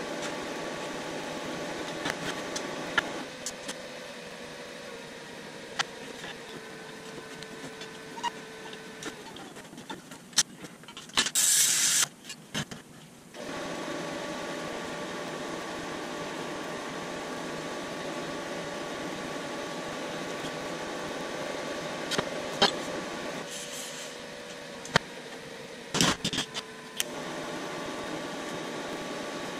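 Electric welding arc buzzing steadily in three stretches as the steel hose-reel hub is welded, with scattered clicks and taps between passes and a brief loud hiss about eleven seconds in.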